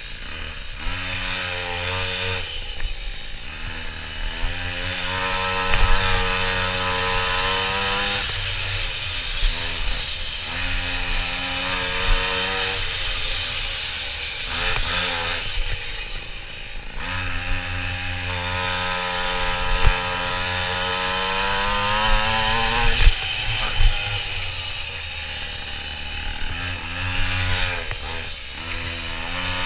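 Minimoto's small two-stroke engine heard from on board, revving up with rising pitch along the straights and dropping off sharply when the throttle closes for the corners, over and over.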